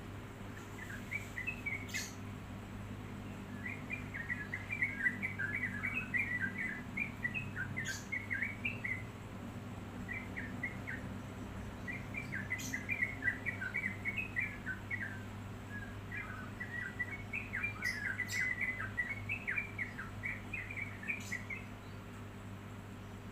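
Yellow-vented bulbul singing: rapid, bubbly chattering phrases in several bouts separated by short pauses.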